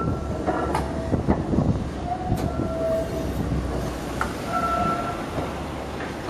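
Vintage Belgian coast tram running along street track toward the listener: a steady low rumble with a few sharp clicks over the rails and several short, high-pitched tones.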